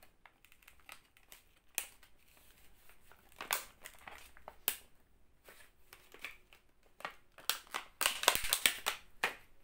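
Product packaging being handled and torn open by hand: scattered crinkling and clicks, thickest about a second before the end.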